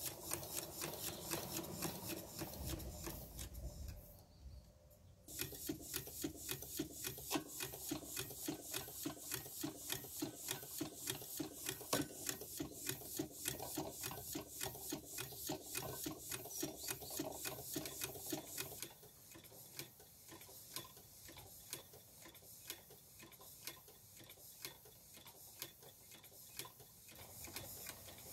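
Scale model of James Watt's 1788 whim beam engine running, its moving linkages and valve gear giving a steady, rapid clicking rhythm. The clicking drops away briefly about four seconds in, and is quieter over the last third.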